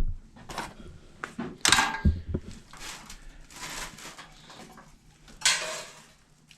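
Handling of metal parts and tools: scattered knocks and clanks, with two louder scraping rasps, the second about five and a half seconds in.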